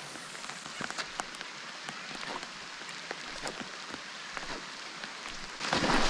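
Steady rain falling, with many small drop ticks scattered through it; a louder rush of noise comes in near the end.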